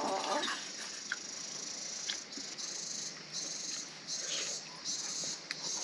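An insect starts calling a little over two seconds in: a series of high-pitched buzzing pulses, each under a second long, repeating steadily. A few faint clicks sound earlier.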